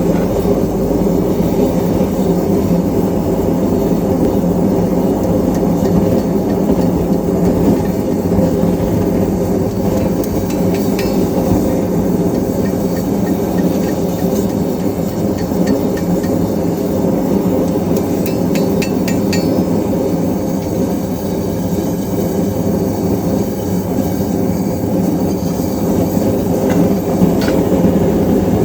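Forge running with a steady rushing noise, with a few light metal clinks about ten, fifteen and nineteen seconds in.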